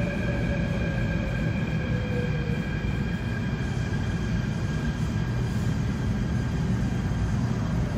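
Seoul Subway Line 3 electric train running alongside the platform with a steady rumble. A whine falls in pitch over the first couple of seconds as the train slows.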